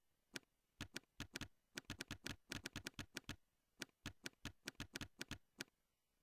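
Computer keyboard typing: a run of quick keystroke clicks in uneven bursts, which stops shortly before the end.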